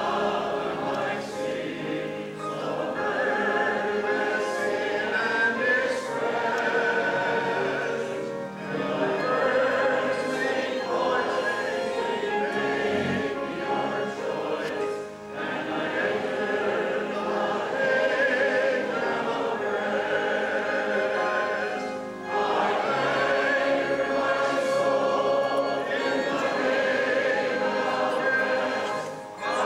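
A choir singing a hymn in sustained phrases, with short breaks between phrases.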